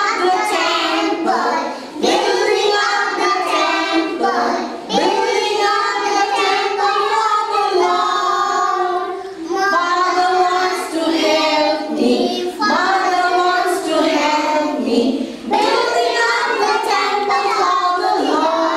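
A group of young children singing a nursery action song together with women's voices leading, in sung phrases of a few seconds each with short breaks between them.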